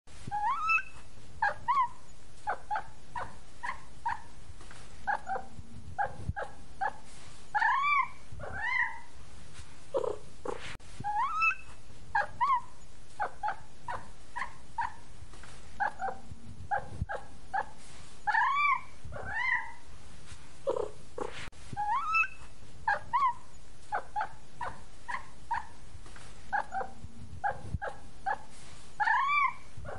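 Kittens mewing over and over: many short, high mews with now and then a longer rising cry, the same run of calls coming round again about every eleven seconds.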